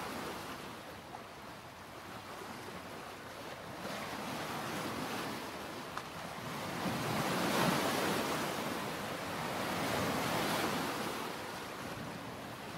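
Sea waves washing onto a beach, the surf swelling and easing in slow surges.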